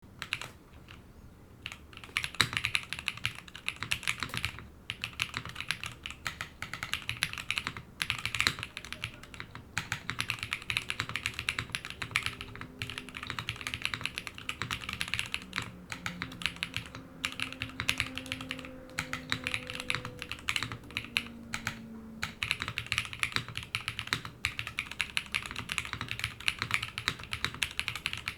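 Continuous typing on a TGR Jane v2 ME TKL mechanical keyboard with lubed DesignerStudio Peach Bloom linear switches, PBT keycaps and an O-ring-mounted polycarbonate plate. It is a dense run of keystrokes, starting a second or so in and broken by a few brief pauses.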